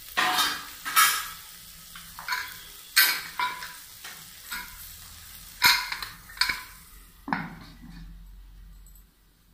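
A metal spoon stirring and scraping sizzling tomato masala in an aluminium pressure cooker. Irregular sharp clinks against the pot come about once a second, with a duller knock about seven seconds in.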